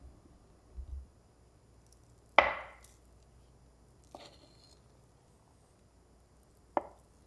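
Kitchen knife cutting through a block of homemade butter and knocking on the wooden cutting board. The loudest knock comes about two and a half seconds in and rings briefly, a fainter one follows near four seconds, and another sharp knock comes near the end.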